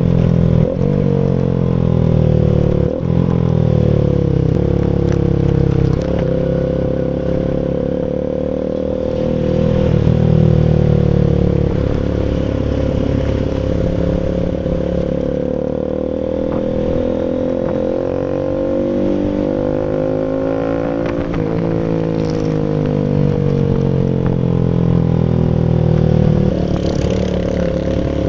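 Rouser RS200's single-cylinder engine running through an SC Project full exhaust, its pitch falling, stepping and rising again several times as the revs change.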